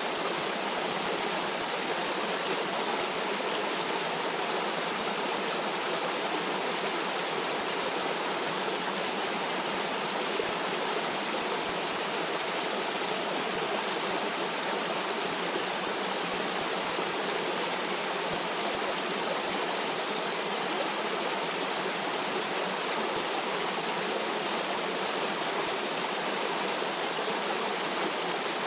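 Stream water rushing and burbling over rocks, a steady even wash of sound with no changes.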